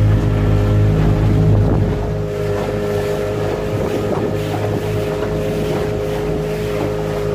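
Motorboat engine running steadily under way, with wind and water noise around it. The deep engine rumble drops away about two seconds in, leaving the higher engine tones and the rush of noise.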